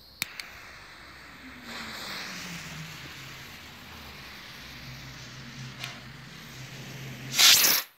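Two sharp clicks, then a small firework rocket's fuse hissing and spitting sparks for several seconds, ending in a loud, short whoosh as the rocket motor fires and launches near the end.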